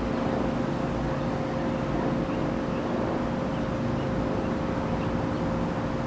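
Wild honey bee swarm clustered on a tree branch, buzzing: a steady, even drone of many wings.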